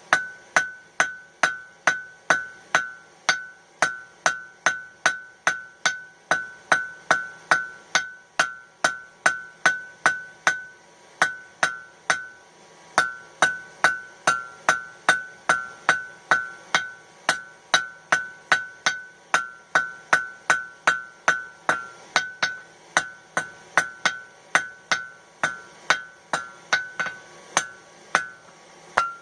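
Blacksmith's hand hammer striking hot steel on an anvil in a steady rhythm, about two to three blows a second, each blow leaving a bright ring, with one short pause about twelve seconds in. This is the steel being drawn out to a point.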